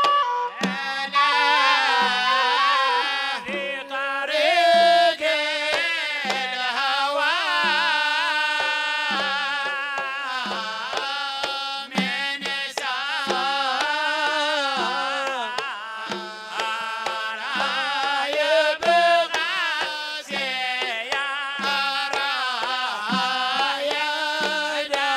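Hadhrami zarbadi music: a sung melody with a wavering, ornamented line over a steady beat on small hand drums.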